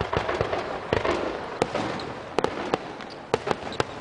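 Aerial fireworks going off: a quick, irregular string of sharp bangs and crackles. The bursts come thick in the first second and then as separate loud reports.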